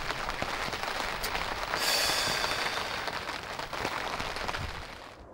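Meat sizzling on a hot roof-tile grill (kawara-yaki): a dense crackling hiss full of small pops, swelling about two seconds in, then fading away near the end.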